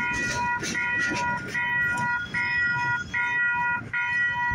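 Electronic railroad crossing bell ringing in a steady repeating pattern of clanging tones. Over the first second or so, the clatter of the passing train's wheels on the rails fades away.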